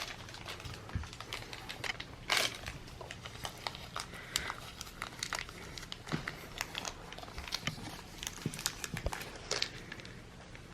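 Packaging being handled, crinkling and rustling in irregular bursts, with a louder crinkle about two seconds in.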